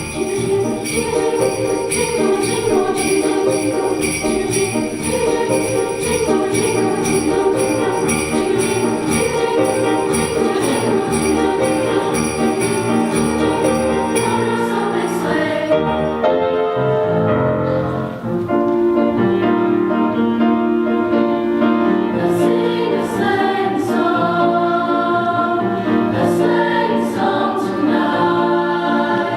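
Women's chorus singing a holiday song with jingle bells shaken steadily. The bells stop a little past halfway while the singing carries on.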